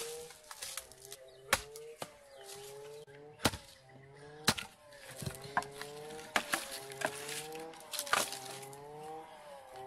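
Hatchet chopping branches into firewood: a series of sharp woody chops and cracks, roughly one a second. Cut pieces clatter as they are thrown onto the pile, and a faint wavering pitched sound runs underneath.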